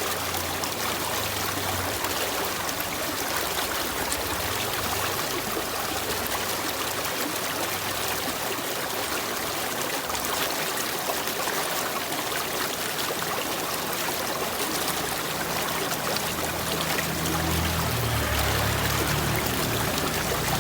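Running water, a stream trickling and splashing steadily. A low hum comes in under it during the last few seconds.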